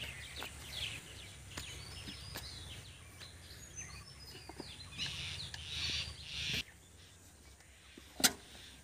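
A hand hoe scraping and striking loose rock and soil, with scattered sharp knocks, the loudest near the end. Birds chirp in the background, over a low rumble that stops about two-thirds of the way in.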